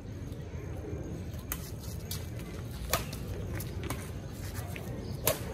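Badminton rackets hitting a shuttlecock back and forth in a rally: sharp cracks about a second apart, the loudest about three seconds in and near the end, over a steady low rumble.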